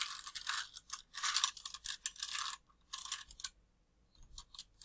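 A plastic 3×3 Rubik's cube having its faces turned in quick succession, a run of rasping, clicking twists. The turning stops about three and a half seconds in, with a few light clicks near the end as the final solving sequence finishes.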